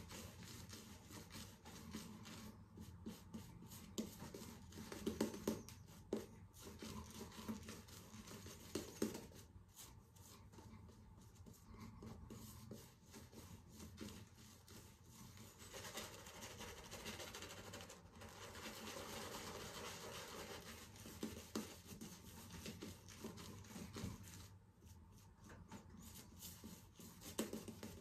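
Shaving brush swirling thick lather over a stubbled face: a faint, soft scratchy rubbing that stops briefly now and then.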